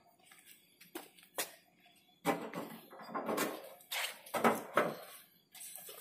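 Small steel guide plates being set down and pushed into place against the base of a model pipe shoe: a run of light metal knocks and short scrapes, sparse at first and louder from about two seconds in.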